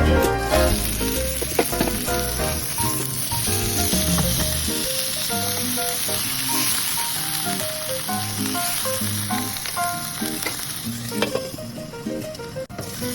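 Food frying in hot oil, a steady sizzle that eases off near the end, with background music playing over it.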